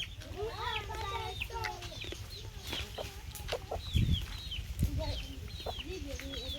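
Chickens clucking and chirping, with many short high falling chirps repeating. A low thump about four seconds in.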